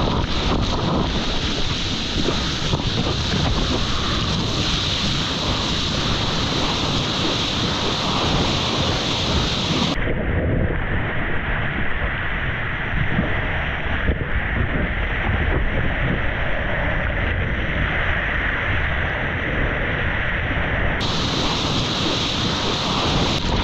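Surf and rushing whitewater splashing over a surfboard, with wind buffeting the board-mounted action camera's microphone. The sound turns duller from about ten seconds in until about twenty-one seconds, then brightens again.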